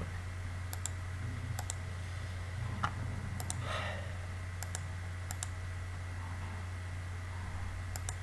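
Scattered computer mouse clicks, several as quick double ticks of press and release, over a steady low electrical hum.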